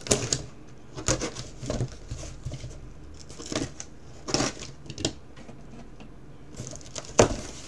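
A safety box cutter slicing clear packing tape on a small cardboard box, with the cardboard scraped and handled: a series of short cuts, rips and rustles with pauses between, the loudest a sharp scrape or knock near the end.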